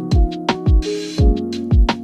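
Background electronic pop music with a steady beat: deep kick drums, quick hi-hat ticks and held synth chords, with a short noise swell about a second in.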